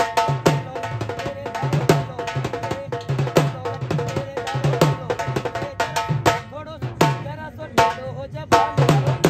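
Rajasthani kathputli puppet-dance music: a steady, quick drum beat under a held melody line.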